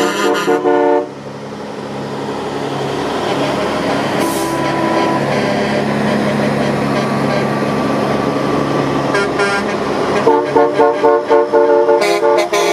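Heavy truck engine passing close by, its rumble building for several seconds and then holding steady. Music cuts out about a second in and comes back about ten seconds in.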